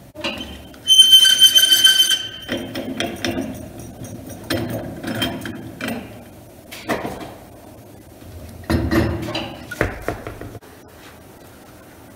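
Metal clicks and clanks as a wheel clamp is loosened on a road force balancer's shaft and a tyre on an alloy wheel is pulled off it. A loud, steady high tone sounds about a second in and lasts about a second and a half.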